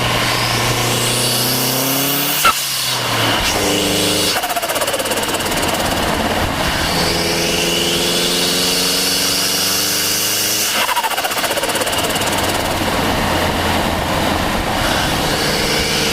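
Turbocharged Mazda MX-5 Miata four-cylinder engine pulling hard with the turbo's spool whine climbing to a high pitch, recorded close to the turbo. A short sharp burst comes about two and a half seconds in as the first pull ends, then a second long pull with the whine rising again, which drops away about eleven seconds in to a steadier run.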